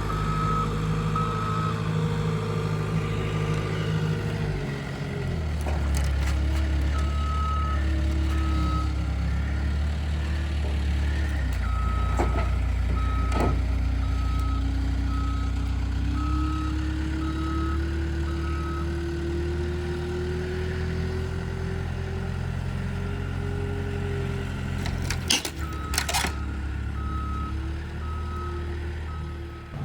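Engine of a heavy machine running and changing speed under load, while its backup alarm beeps in several spells as it reverses. A couple of sharp knocks come about twelve seconds in, and a louder cluster of bangs comes near the end.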